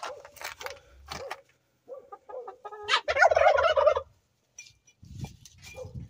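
Domestic turkey gobbling: a few short calls, then one loud rolling gobble about three seconds in, lasting about a second.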